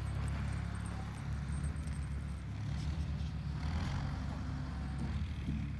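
A low, steady engine hum, with faint outdoor background noise above it.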